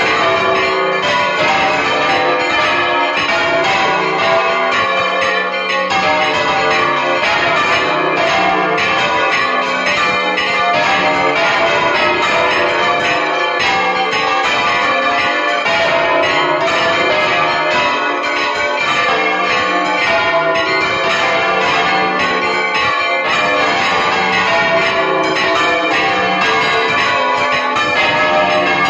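Two large church bells swung full circle by hand on counterweighted yokes, rung alternately so that their strokes overlap in a continuous loud peal. Heard close, from inside the belfry.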